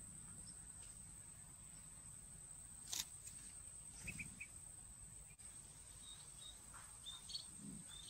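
Faint outdoor ambience: a steady high-pitched whine, with one sharp click about three seconds in and a few faint, short high chirps around the middle and again near the end.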